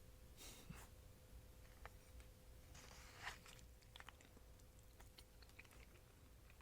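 Faint chewing and mouth sounds of someone eating fruit close to the microphone: a few soft wet clicks and rustles, the most noticeable about half a second and three seconds in, over a faint steady hum.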